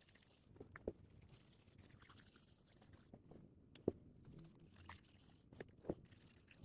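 Near silence broken by a few faint clicks and light taps from handling, the loudest about four seconds in.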